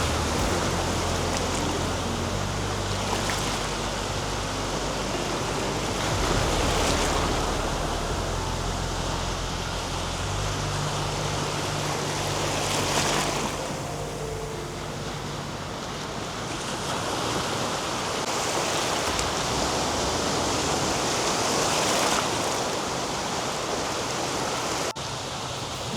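Sea waves washing onto a beach, the surf noise swelling and easing every few seconds, with soft background music underneath.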